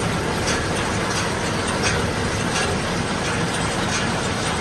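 John Deere round baler just engaged off the tractor's PTO and running empty at low speed over the tractor engine, with a steady mechanical clatter and a light click repeating about every three-quarters of a second. Everything is turning freely.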